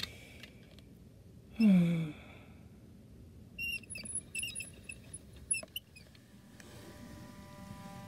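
A short, loud tone sliding down in pitch, then a quick run of short high-pitched squeaks. Bowed-string music fades in near the end.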